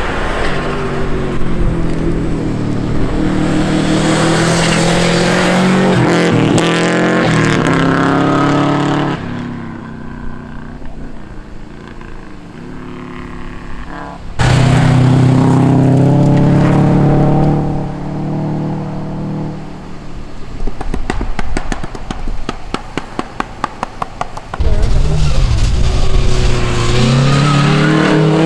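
Rally cars at full throttle on a snow-covered gravel stage, passing one after another: engines revving hard and changing pitch through gear changes, fading between cars. In the quieter stretch before the last car arrives, a quick run of sharp pops is heard.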